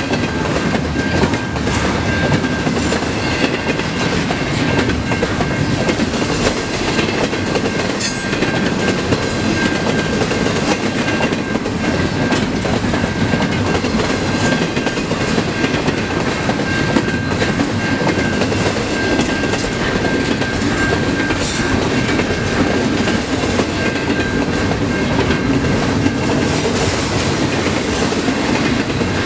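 Double-stack container cars of a CN intermodal freight train rolling past at speed: a steady loud rumble with wheel clatter, and a thin steady high ring over it.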